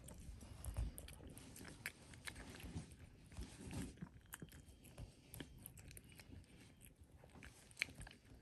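Domestic cat eating chunky wet food from a bowl: faint, irregular chewing and smacking clicks, with one sharper click near the end.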